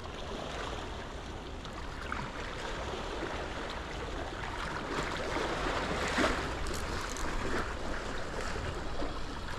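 Steady noise of moving sea water, waves washing, swelling a little louder about six seconds in.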